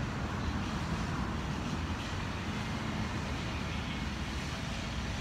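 Steady low outdoor rumble with no distinct events, heaviest in the low end.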